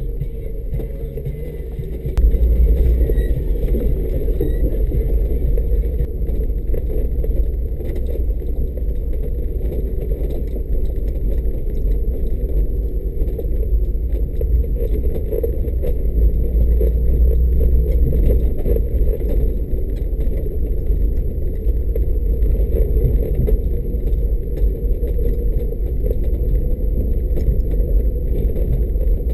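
Mercedes G500's V8 and driving noise as the off-roader travels slowly along a grassy farm track: a steady low rumble that gets louder about two seconds in.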